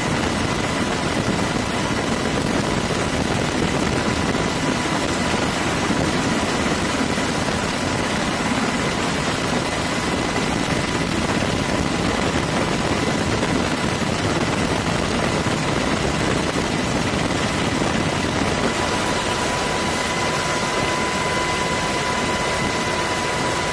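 Steady aircraft turbine noise, a constant rushing drone with a thin high whine that holds one pitch and never changes.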